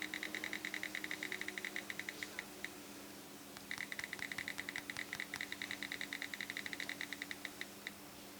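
iPhone date-picker wheel ticking from the phone's speaker as the year is scrolled, a rapid run of clicks at about ten a second. The clicks stop for about a second near the middle, then run on again.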